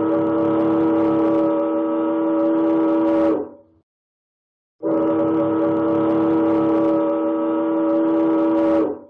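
Ship's whistle sounding two prolonged blasts of about four seconds each, a deep steady horn with a pause of about a second and a half between them. These are the two prolonged blasts that open the Rule 9(e)(i) overtaking signal, 'I intend to overtake you on your starboard side'.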